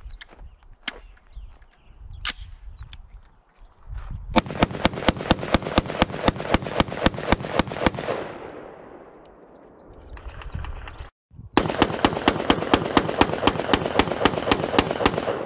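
Rapid gunfire in two long strings of evenly spaced shots, about seven a second. The first starts about four seconds in and dies away a few seconds later. The second starts after a short break and keeps going.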